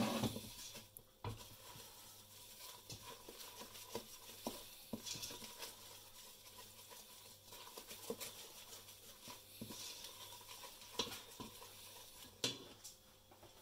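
Wooden spoon stirring a thick butter-and-flour roux in a stainless steel saucepan, with irregular scraping and light taps against the pan and a sharper knock near the end.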